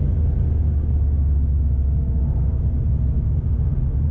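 In the cabin of a supercharged Ford Mustang GT coasting down from about 200 km/h off the throttle: a steady deep rumble of the V8 and road and wind noise, with no rising engine note.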